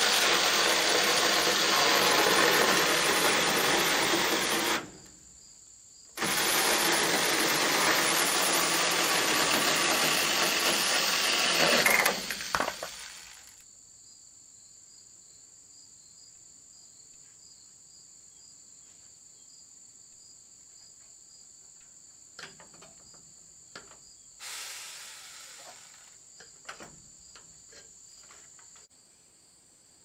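Cordless drill running into a wooden beam in two spells, about five seconds then about six, with a short stop between. After it stops, insects trill steadily, and there are a few light knocks near the end.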